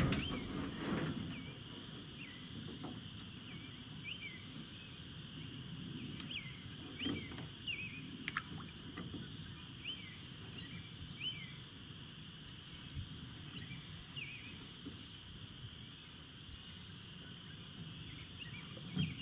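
Many short, high chirping calls from small wild animals, scattered irregularly over a steady high hiss and the low even rush of running water from the dam's chute. There is a single sharp click about eight seconds in.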